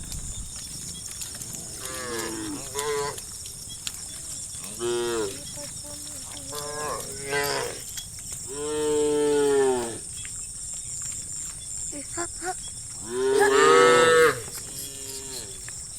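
Cattle mooing: a string of separate moos at different pitches from several cows, some short and some drawn out, the two longest and loudest about halfway through and near the end.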